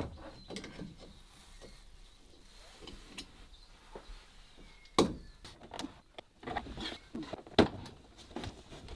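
Interior panels of a van being pried and pulled off: scattered clicks, scrapes and knocks of plastic clips and ceiling-lining board working loose, with two louder knocks about five seconds in and near the end.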